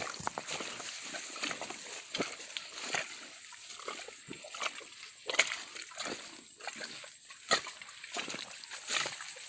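Footsteps and movement through dry leaf litter and grass: irregular crackles, rustles and light knocks, with a thin steady high tone behind them.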